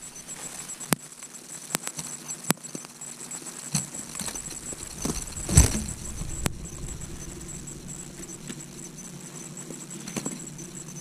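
Scattered knocks and clicks of rods, gear and a landed fish being handled in an aluminum jon boat, with a heavier thump about five and a half seconds in.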